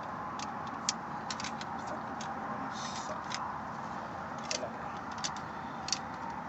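Scattered light metallic clicks of shotgun shells being loaded into a shotgun, over a steady background hiss.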